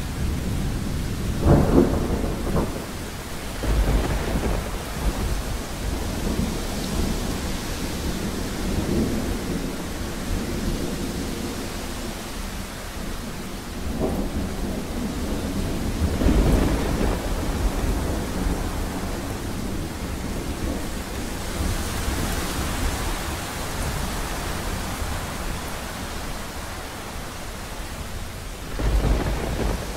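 Steady rain with thunder. Sharp thunder cracks come about two seconds in and again near the middle, and deep rolling rumbles come around four seconds, just after the middle, and near the end.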